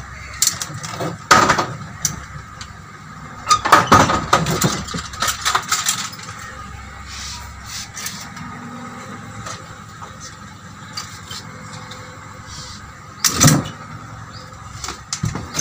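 Knocks and clatter of a metal walking frame and a car door as a person climbs into a car seat: a few sharp knocks, a busy cluster of them a few seconds in, and one more near the end.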